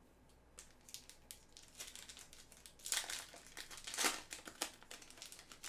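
Foil trading-card pack crinkling as it is handled and torn open by hand, in irregular crackles that are loudest about three and four seconds in.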